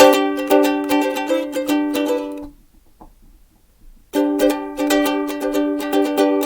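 Ukulele strummed in quick, even strokes, playing through chords. The strumming breaks off about two and a half seconds in and starts again after a short pause.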